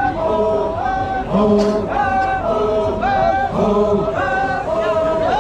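A group of men chanting in unison, a short two-part phrase of a high and a low note repeated about once a second.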